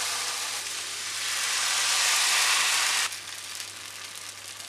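Appam batter sizzling in a hot non-stick pan as it is poured in; the hiss swells, then cuts off suddenly about three seconds in to a quieter sizzle with faint crackling as bubbles form in the batter.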